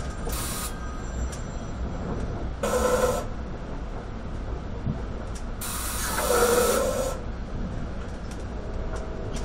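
Steady low rumble of an NJ Transit commuter train in motion, heard from inside the passenger car. Three brief louder rushes of hiss come through: a short one about half a second in, another around three seconds in, and a longer one from about five and a half to seven seconds.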